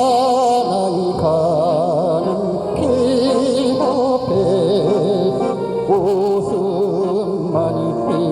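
Music: a slow melody with heavy vibrato over a held accompaniment.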